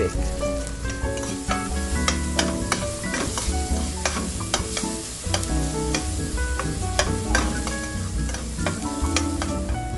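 Chopped onions and garlic sizzling in hot oil in a stainless steel pot, stirred with a metal spoon that clinks and scrapes against the pot, over background music with a low bass line.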